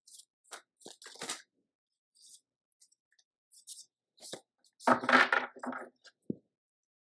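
A deck of tarot cards being shuffled by hand: short papery flicks and slides, a louder burst of shuffling about five seconds in, then a single low knock.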